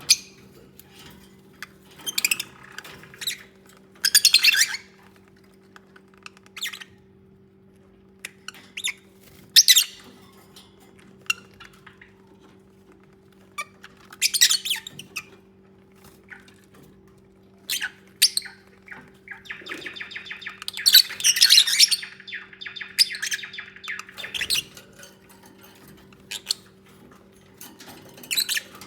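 Lovebirds giving short, high-pitched chirps and squawks every few seconds, with a longer stretch of rapid chattering about two-thirds of the way through. A faint steady low hum runs underneath.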